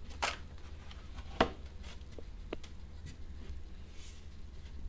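Handling noise as a carbon-fibre glider wing is moved on a workbench: a few light taps and clicks, the sharpest about a second and a half in, over a faint steady low hum.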